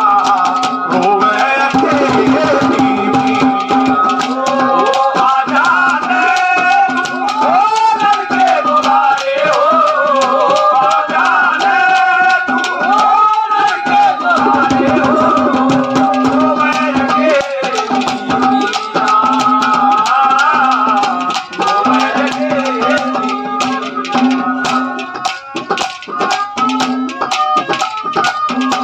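Live Haryanvi ragni folk music: a steady held drone under a sliding melody, with a hand-drum beat and jingling percussion.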